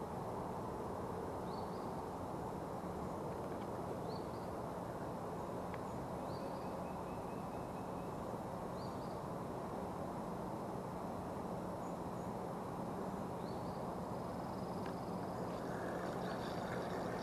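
A bird repeats a short rising call every two to three seconds over a steady low rush of background noise. Near the end there is clicking and rattling from a spinning reel being handled.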